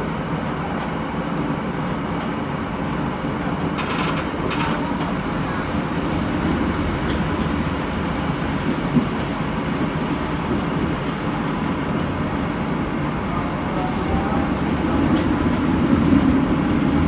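Inside a moving streetcar: the steady rumble of the car running along its rails, with a couple of brief clicks about four seconds in, growing louder near the end.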